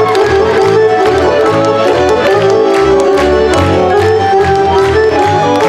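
Serbian folk dance music from Šumadija, a lively kolo tune with a steady low beat under it.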